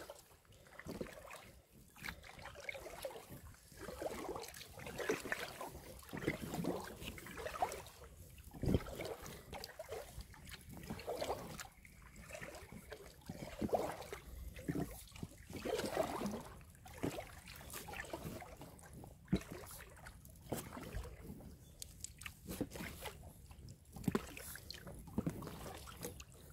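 Paddling an inflatable kayak: the paddle dipping into the water with sloshing and trickling, a surge of water sound every couple of seconds.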